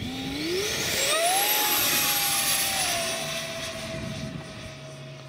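Electric ducted fan (a 70 mm, 14-blade, 2800 kV unit) of a JP MiG-15 model jet spooling up at hand launch, with a fast rising whine to full power. It holds a steady high whine, then eases down a little in pitch after about three seconds and fades as the jet climbs away.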